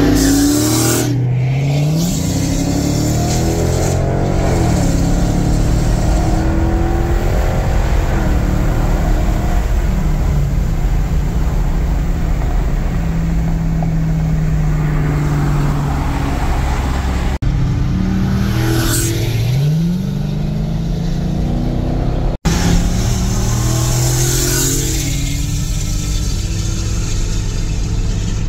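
Dodge Challenger Scat Pack's 6.4-litre HEMI V8, on a fresh Diablo performance tune, accelerating hard; the engine pitch climbs about a second in and again a little past halfway. It is heard from a car pacing it, mixed with that car's own engine and steady road and wind noise, with two brief cuts in the sound.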